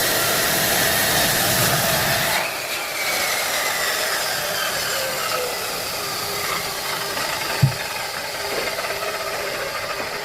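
Power tool motor whining, its pitch jumping up about two and a half seconds in and then slowly falling as it winds down, with a single short knock near the end.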